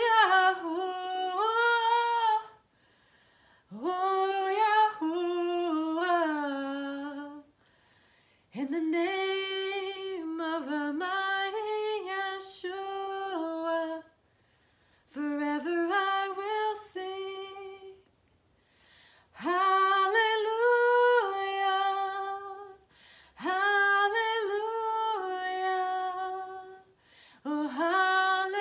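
A woman singing a slow praise melody unaccompanied, in about seven long phrases, each starting with an upward scoop in pitch, with short pauses for breath between them.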